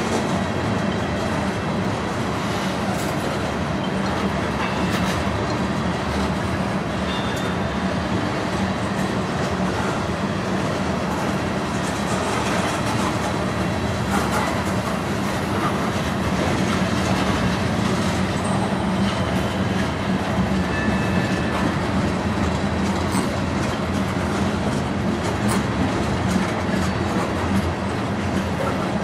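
Freight train of covered hoppers and tank cars rolling past: a steady rumble of steel wheels on rail with scattered clicking over the rail joints. There are a few brief, faint high squeals from the wheels.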